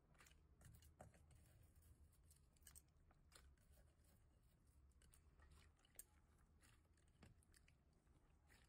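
Very faint crackling and squishing of hands kneading clear blue slime mixed with white crunchy granules, with scattered small clicks; the loudest click comes about six seconds in.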